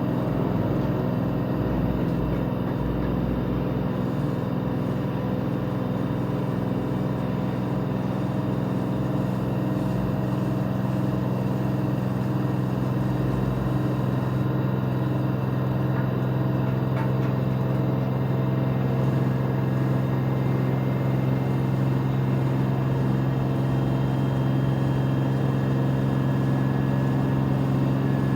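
LG 13 kg washer-dryer drum spinning at high speed, around 1,250 RPM, near the top of its spin cycle. It makes a steady motor-and-drum hum with a low tone that grows slightly louder.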